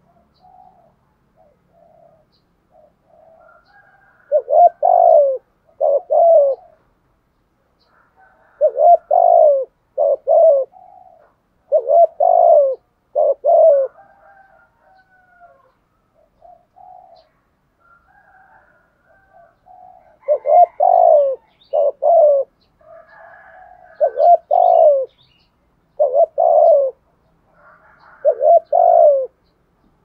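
Spotted dove cooing in the urging coo Vietnamese keepers call 'gù thúc'. Short, deep coo notes come in groups of two or three, separated by pauses, with soft quieter notes between the groups.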